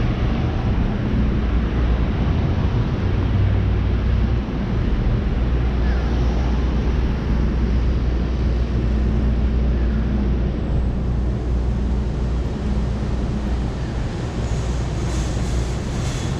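Steady low rumble of vehicle traffic, with a deep engine hum that shifts in pitch about four seconds in.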